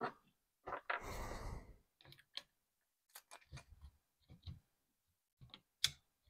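Sparse light clicks and small knocks of a circuit board being handled and set down on a bench mat, with a short rustling hiss about a second in.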